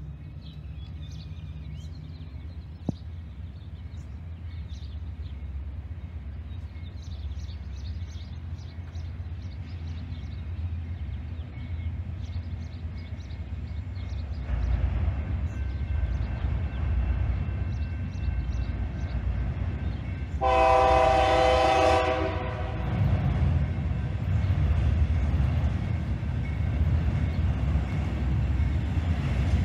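A BNSF diesel freight locomotive approaching: a low engine rumble that grows steadily louder, with one short blast of its multi-note air horn about two-thirds of the way through and another starting at the very end.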